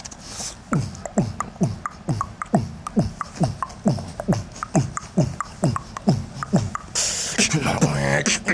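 Beatboxing: a fast, even run of falling vocal pitch sweeps, about three a second, then a hissing burst and a wobbling bass tone near the end.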